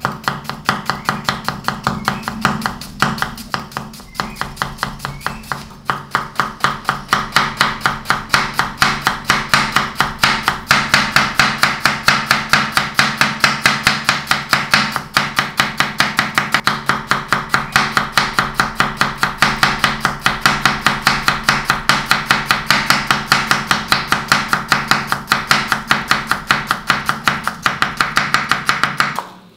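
Kitchen knife chopping on a cutting board in a steady, even rhythm of about three to four strokes a second, over a faint low steady hum.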